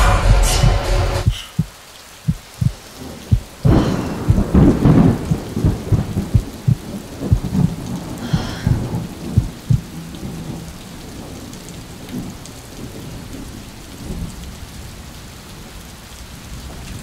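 Thunderstorm: rain falling with thunder cracking and rumbling, busiest in the first half, then easing to a steady hiss of rain.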